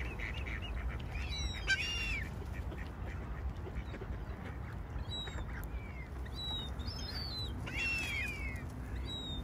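Waterbirds calling: short, high, arching calls in several bouts, about two, five and eight seconds in, over a steady low rumble.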